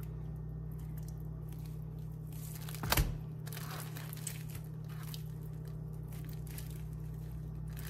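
Marinated raw chicken thighs being lifted from a glass bowl with a fork and laid on a metal baking sheet: soft wet handling noises, with one sharp knock about three seconds in. A steady low hum runs underneath.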